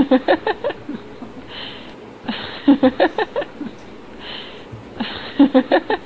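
Stifled giggling in three short bursts, each a breathy hiss followed by a quick run of pitched ha-ha pulses, from a woman with a drinking straw in her mouth.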